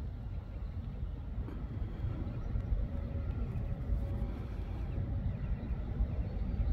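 A steady low outdoor rumble with a faint hum in it.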